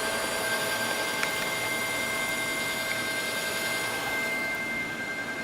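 Pillarhouse Jade selective solder machine running: a steady hiss with high, even whining tones, and one faint tick about a second in. The noise eases off slightly near the end.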